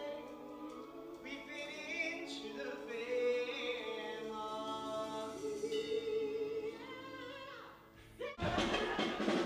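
Several voices singing held notes in harmony, a musical theatre ensemble number. Near the end the singing fades briefly and then cuts abruptly to a much louder, fuller passage.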